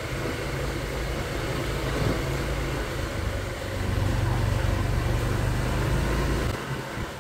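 Motor scooter riding along, its engine running under a low, steady rumble of road and wind noise. The sound grows louder about four seconds in and falls away near the end.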